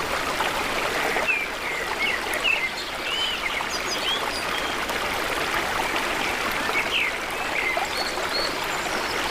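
River water running steadily through a diverted channel. Brief high chirps are scattered over it, mostly in the first few seconds and again near the end.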